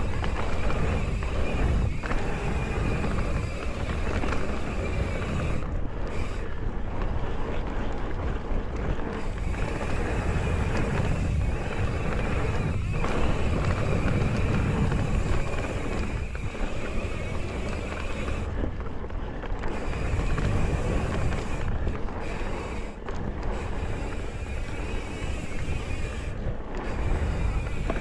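Mountain bike ridden fast along a dirt singletrack: wind rushing over the camera microphone and tyres rolling on packed dirt, with occasional knocks from bumps.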